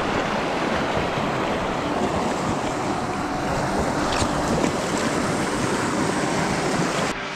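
Close, steady rush of water in a shallow rocky stream, with wind noise on the microphone. It cuts off suddenly near the end.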